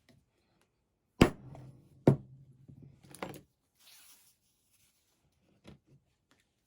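Two sharp knocks about a second apart, each with a short low ringing tail, then a lighter knock, a brief scrape and a few faint clicks.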